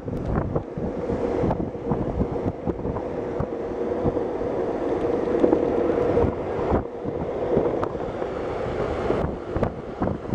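Wind rushing over the microphone at speed, over the steady rumbling hum of longboard wheels rolling on asphalt.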